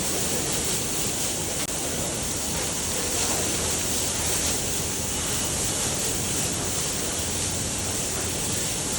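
Steady, even hiss of noise with no distinct events, strongest in the high range.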